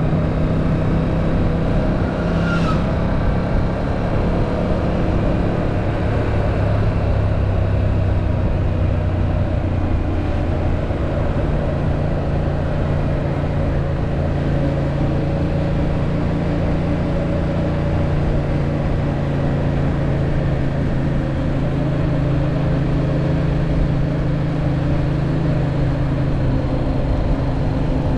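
Yamaha MT-07's 689 cc parallel-twin engine running steadily while the motorcycle is ridden. Its note steps up to a slightly higher pitch about eleven seconds in and holds there.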